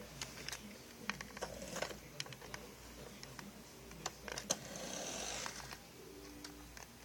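Scattered light clicks and rubbing from handling, with a short hissing whir about five seconds in.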